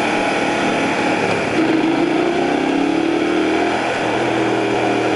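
Hyosung Comet 250 motorcycle's V-twin engine running under way. Its pitch rises as it speeds up about a second and a half in, then holds steady.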